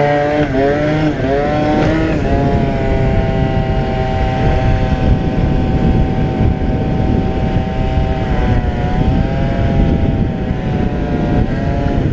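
Two-stroke Yamaha Aerox scooter engine at full throttle: the revs climb over the first two seconds, then hold high and steady, dipping briefly and picking up again about two-thirds of the way through. Wind rushes over the helmet-mounted microphone underneath.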